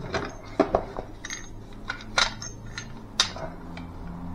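Folding steel survival shovel clinking and clicking as its head and hinge are handled and the blade is swung open: several sharp metal clinks at irregular intervals.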